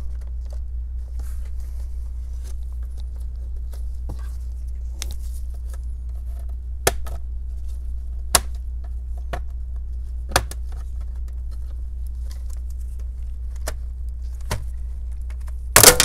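Plastic snap clips of a laptop's bottom cover popping loose as it is pried off, single sharp clicks a few seconds apart, then a louder clatter near the end as the cover comes free. A steady low hum runs underneath.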